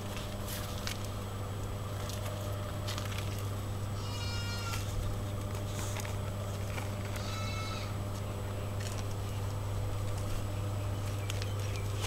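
Two short, high-pitched animal calls about three seconds apart, each dipping slightly in pitch at the end, over a steady low hum and a few scattered clicks.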